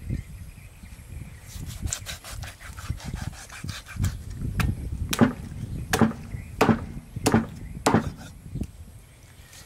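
A meat cleaver chopping turtle meat into pieces on a thick wooden chopping block. The knocks are light at first, then steady and harder from about four seconds in, about three every two seconds.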